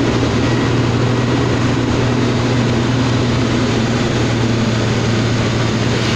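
Truck's diesel engine and exhaust silencer running under steady load, heard inside the cab while driving through a hill section: a steady low drone with road noise over it. The driver puts the extra noise on ghat stretches down to the silencer.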